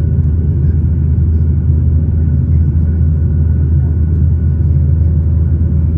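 Boeing 737-900's CFM56-7B jet engines running at high power during takeoff, heard from inside the cabin as a steady, loud low rumble with a few faint steady tones above it.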